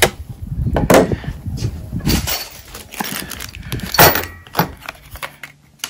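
Rustling and crackling of plastic product packaging being cut open and handled, with a few sharp clicks and knocks of small hardware on a wooden table. The loudest knocks come about a second in and about four seconds in.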